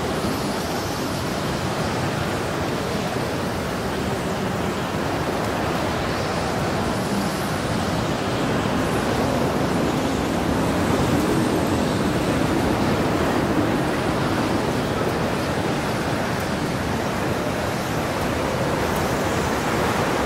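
Storm wind blowing in a continuous rushing noise that swells about halfway through and eases again, with no thunderclaps.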